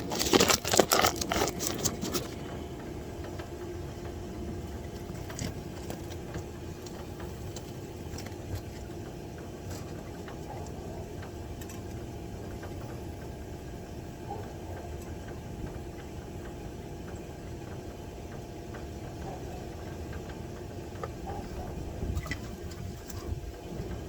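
Dense rattling and crackling handling noise for about the first two seconds, then a steady machine hum with a few faint clicks.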